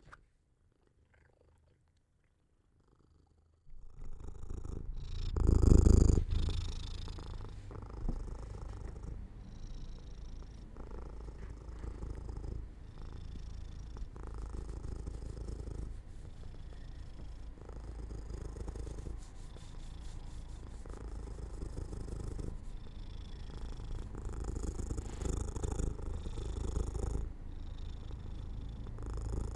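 Domestic cat purring steadily, close to the microphone, starting a few seconds in after near silence. There is a brief louder swell about six seconds in.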